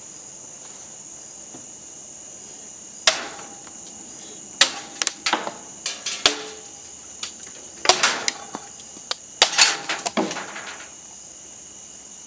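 Katana blade chopping a thick PVC pipe: about a dozen sharp cracks in irregular succession, each with a brief ring, starting about three seconds in and ending shortly before the close.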